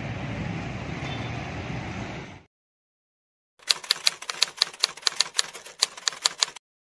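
Street traffic noise for about two and a half seconds, cut off sharply. After a short gap comes a typewriter keystroke sound effect: rapid sharp clacks, about six a second, for about three seconds.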